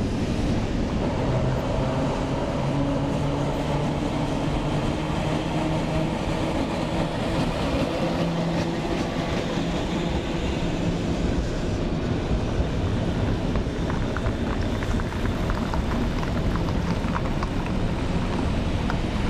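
Vintage trams rolling along street rails: a steady running rumble with a low hum, and light clicks of the wheels over the track in the later part.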